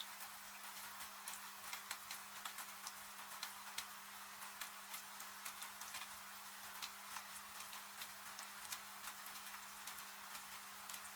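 A wood fire crackling with irregular sharp pops over a steady hiss of rain. A faint steady hum runs underneath.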